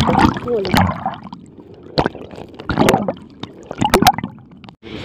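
Shallow seawater splashing and sloshing, broken by a few short, sharp splashes.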